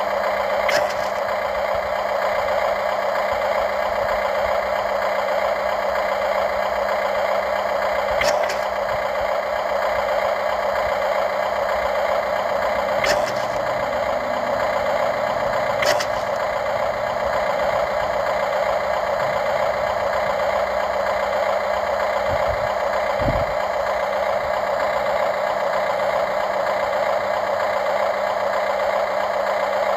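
Radio-controlled model excavator running with a steady mechanical hum, with four sharp clicks along the way.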